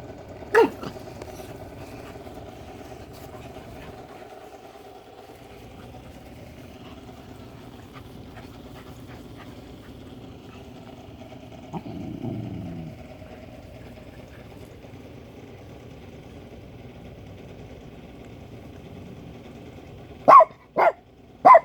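A dog barking: one sharp bark about half a second in, then three quick loud barks near the end, over a steady low hum.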